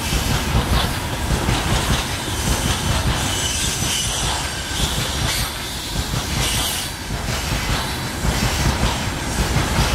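Freight train of hopper wagons behind a VL8m electric locomotive rolling along the track: a steady rumble of wheels on rails, with high-pitched wheel squeal coming and going.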